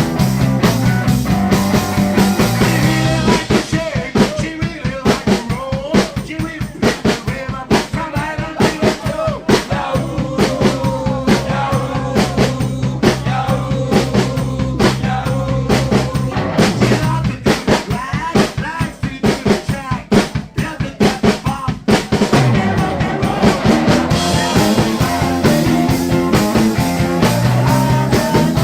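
Live rock and roll band playing an instrumental passage, with a drum kit hitting fast and busy over a steady bass line and guitar. The drumming thins out for a few seconds past the middle, and the full band sound comes back in near the end.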